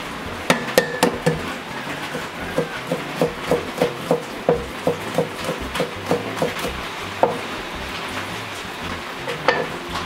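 Cleaver chopping on a cutting board. A few heavy strikes at the start, then a steady run of even knocks about three a second, with a couple more strikes near the end.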